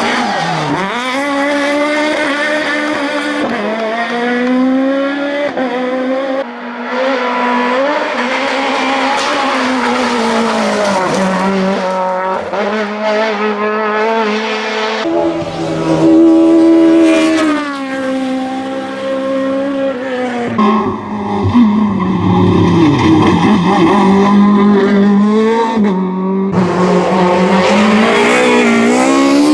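Two-litre four-cylinder Kit Car rally car engine at full throttle, revving high and dropping back over and over through gear changes and lifts.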